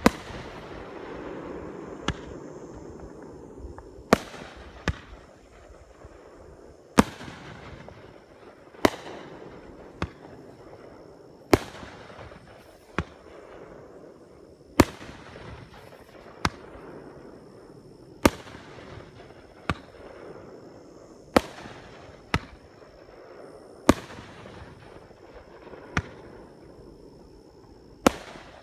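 Aerial firework shells bursting one after another, sharp bangs every one to two seconds, each followed by a short echo.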